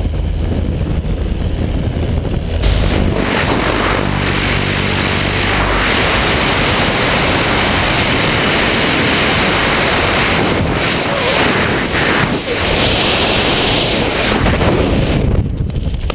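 Light single-engine jump plane's engine droning, heard in the cabin, then loud rushing wind on the helmet camera's microphone through freefall. The wind cuts off sharply near the end as the parachute opens.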